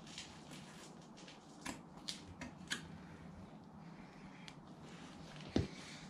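Small sharp metal clicks from hooking exhaust springs onto the spring hangers at the slip-on muffler's joint with a spring-puller tool, a few in quick succession about two seconds in, then one dull knock near the end.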